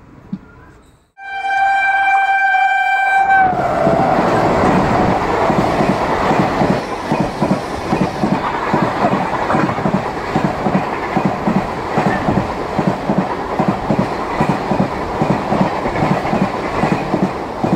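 A train's horn sounds one long steady note for about two seconds. The horn gives way to the loud, rhythmic clickety-clack of the train's wheels running over the rail joints.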